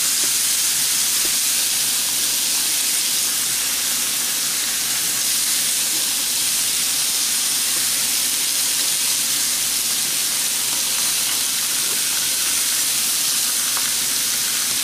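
Rib eye steak and pork loin pieces, with sliced mushrooms, sizzling on a hot cast-iron grill pan: a steady, unbroken frying hiss.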